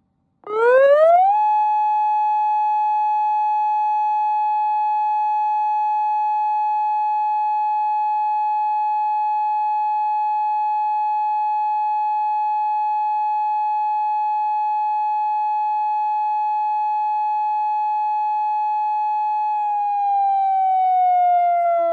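Federal Signal UltraVoice+ warning controller sounding its single siren tone, an electronic imitation of a mechanical siren. It winds up quickly in about a second, holds one steady pitch for most of the time, then starts to wind down slowly near the end.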